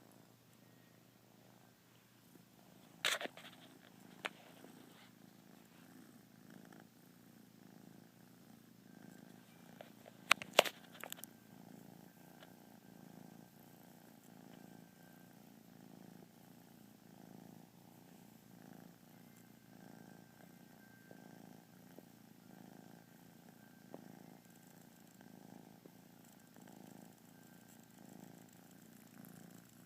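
Kitten purring steadily in an even, pulsing rhythm. A few sharp clicks or taps stand out about three seconds in and again around ten seconds in, louder than the purr.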